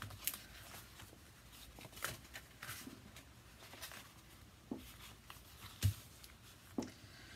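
Scattered light rustles and taps of paper and craft supplies being handled on a work surface, with one sharper knock about six seconds in.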